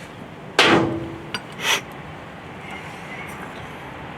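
A sharp bang about half a second in, dying away with a short ringing tone, followed by a light click and a brief noisy burst about a second later.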